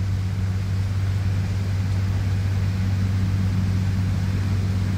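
A steady low hum, unchanging in pitch and level, over a faint hiss.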